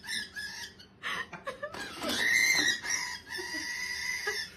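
A pet bird inside a cardboard box letting out harsh, shrill calls, the longest drawn out for about a second and a half from about two seconds in: an angry freak-out, which the owner puts down to the bird being hormonal.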